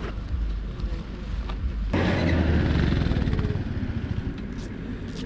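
A motor vehicle engine running at idle. About two seconds in, another vehicle's engine starts up close by, loud for a couple of seconds before fading away.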